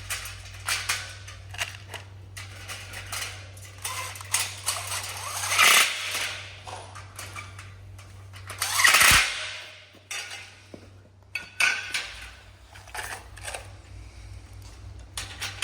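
Clinking and knocking of greenhouse frame parts and fittings being handled during assembly, with two louder rushing sounds about six and nine seconds in, over a steady low hum.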